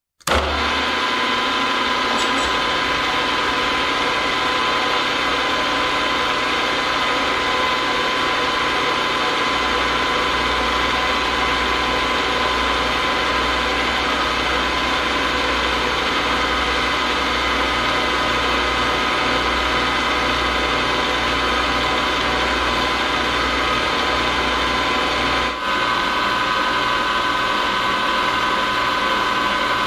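Gearhead milling machine running steadily, its gear train giving a constant multi-tone whine over a low hum, while an end mill takes a slow finishing pass along an aluminium plate.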